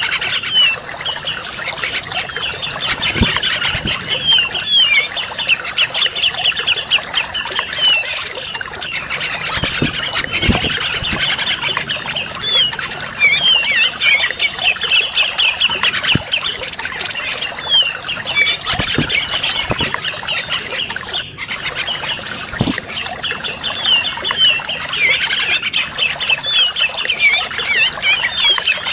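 Bird-lure recording of bulbul-type birds calling at once: a continuous, dense chatter of fast, high, repeated notes, played to draw in grey-cheeked bulbuls (cucak jenggot).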